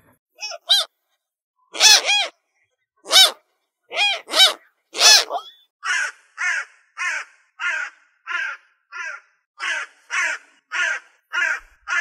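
Crows cawing: a few loud, separate caws over the first five seconds, then a quicker, even run of shorter caws, about two a second.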